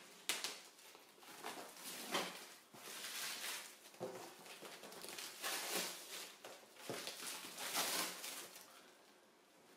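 Black plastic stretch wrap crinkling and rustling in irregular bursts as it is cut with scissors and peeled off a cardboard box.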